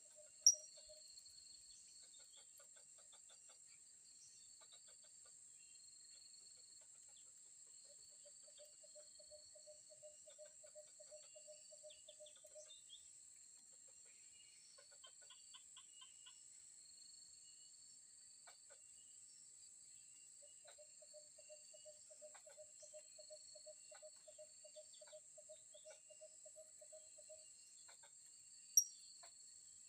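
Faint insect chorus: a steady high-pitched drone of crickets or cicadas, with trains of rapid repeated pulses that start and stop, scattered faint chirps, and two short sharp high calls, one just after the start and one near the end.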